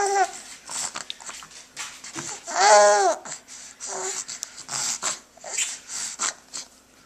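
A baby babbling, with a long high-pitched squeal that rises and falls about three seconds in, amid small scattered clicks.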